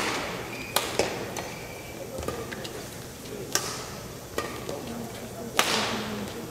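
Badminton rally: rackets striking the shuttlecock, giving sharp cracks at irregular spacing. There are about five hits, the first right at the start, two close together about a second in, one past the middle and one near the end.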